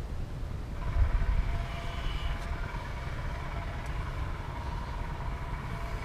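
Wind rumbling on the microphone. From about a second in it is joined by a faint, wavering buzz of honeybees flying around the open hive.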